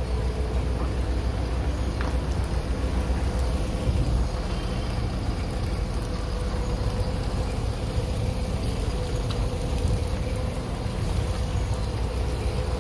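A bus engine idling: a steady low rumble with a constant hum, unchanging throughout.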